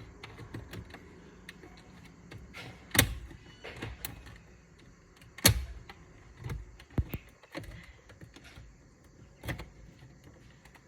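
Irregular clicks and knocks of hand tools and parts being worked at a car's steering wheel, with a handful of louder knocks spaced a couple of seconds apart.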